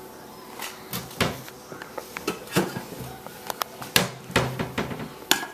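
Fetching a plate from a kitchen cupboard: a run of sharp knocks and clicks from the cupboard door and dishes.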